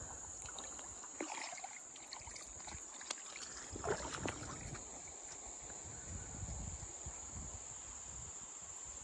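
Steady high-pitched chirring of insects, with feet sloshing through shallow, rocky creek water a few times, most clearly about a second in and around four seconds in.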